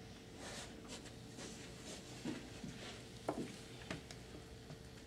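Hands working a lump of Super Sculpey Firm polymer clay: soft rustling and squishing with a few light clicks and taps, over a faint steady hum.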